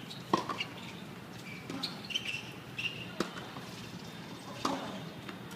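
Tennis ball struck back and forth by racquets in a rally: four sharp hits about a second and a half apart, with short high chirps between them.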